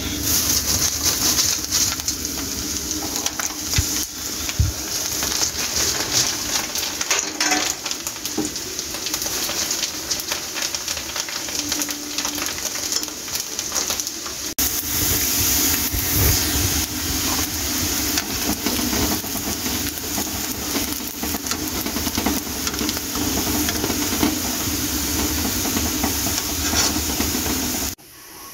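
Small dried papads frying in hot oil in a karahi: a steady sizzle full of small crackling pops. It breaks off for a moment midway and stops abruptly near the end.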